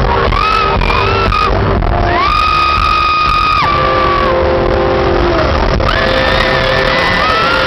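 Live pop band performance with a sung melody, including one long held note about two seconds in, over a loud, steady accompaniment. Crowd shouting is mixed in.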